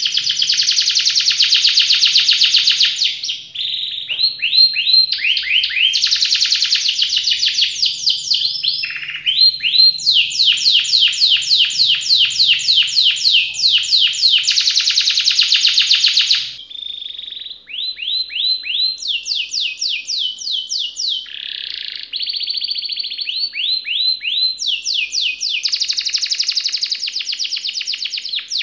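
Domestic canaries singing long, fast rolling trills: runs of rapid, repeated sweeping notes, with a new phrase every few seconds. Just past halfway the song switches to a second, slightly quieter bird.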